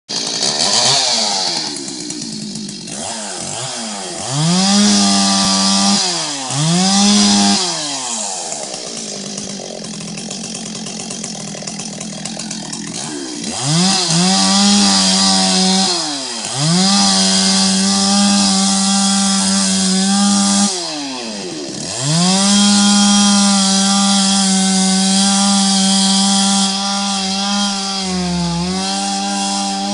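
Two-stroke chainsaw cutting tree roots down in the soil of a trench. The engine revs up and down again and again, held at high revs for several seconds at a time, with a lower, steadier stretch about a third of the way in.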